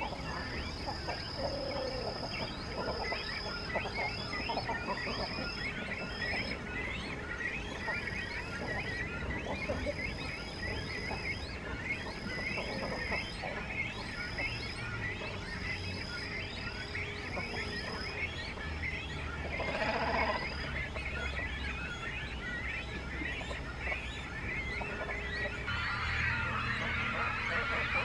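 Great cormorant nesting colony: a steady stream of many short, high chirping calls, from chicks begging at the nest. A louder, lower call stands out about two-thirds of the way in, and a single high note from another bird repeats about once a second through the first two-thirds.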